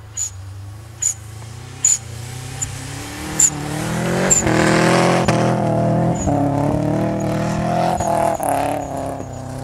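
Subaru Impreza WRX's turbocharged flat-four engine revving hard as the car spins its wheels and slides through deep snow. The revs climb about three seconds in and stay high, rising and falling with the wheelspin, then ease off near the end. Short, sharp high chirps come every second or so in the first few seconds.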